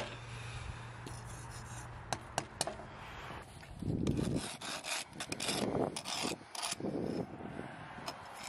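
Steel pliers scraping and raking packed casting sand across a sand mold. A few light clicks come first, then from about halfway a run of rough scraping strokes.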